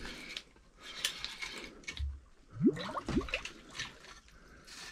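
Fishing line being hand-pulled up through a hole in the ice as a hooked walleye is landed, with water dripping and sloshing and scattered handling clicks. Two brief rising tones come about halfway through.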